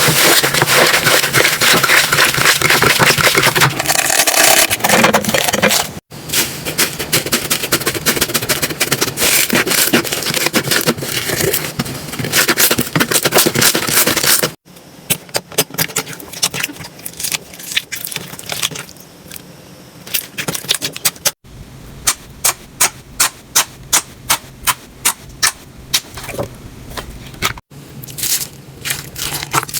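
Slime being squeezed, stretched and poked by hand, giving dense crackling and popping clicks in several short, abruptly cut segments. In the last part the pops come in a regular series of sharp snaps.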